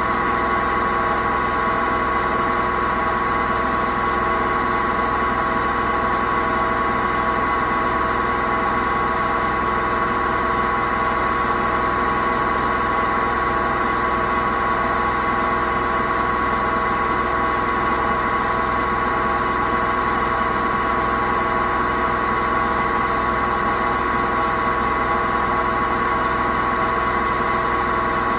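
Hoover VHD 9163 ZI washing machine drum spinning at a steady speed: a loud, unchanging whine over a rumbling drone. It comes from broken drum bearings.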